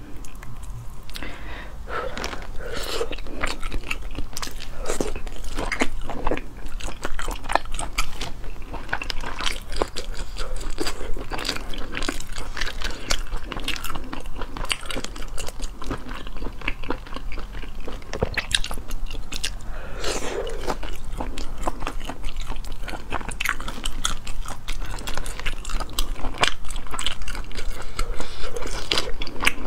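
Close-up eating sounds of sea snails in spicy sauce being bitten and chewed, wet and crunchy, with many sharp clicks and smacks.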